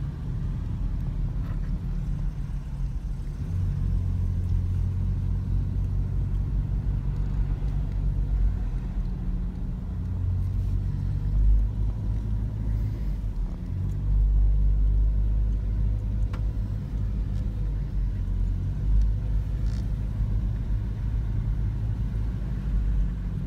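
Low engine rumble from inside a car creeping in stop-and-go traffic, the drone shifting up and down in strength a few times as the car moves on and slows.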